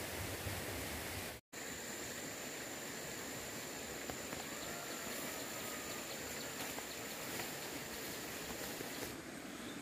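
Steady background hiss of ambient outdoor noise, cut off for an instant about a second and a half in. After the cut a thin, high steady whine joins it and stops near the end, with a few faint chirps in the middle.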